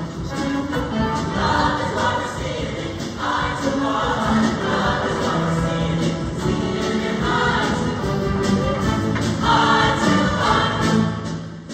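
Show choir singing in full ensemble over loud backing music, with held chords.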